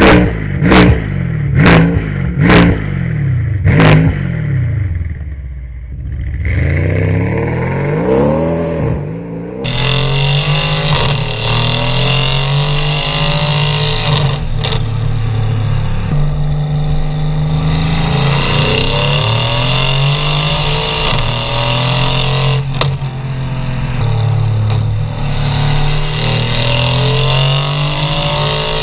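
Mercedes-AMG C63 V8 through a Fi aftermarket exhaust: a series of quick, sharp throttle blips in the first four seconds. About six seconds in, a single rev climbs, then the engine runs loud under load, its pitch rising and falling again and again.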